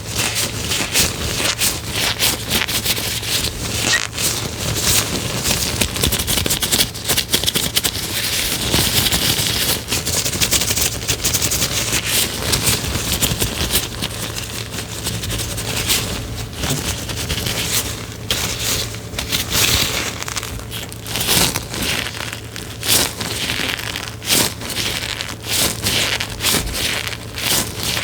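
Close-up crackling and crinkling: a dense, irregular run of small clicks and scratches, with a faint steady low hum underneath.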